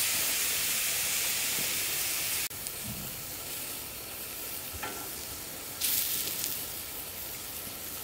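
Soy-sauce-basted corn on the cob and king oyster mushrooms sizzling on a hot iron griddle plate over a wood fire: a steady high hiss. It drops abruptly in level about two and a half seconds in, with a brief louder flare of hiss near six seconds.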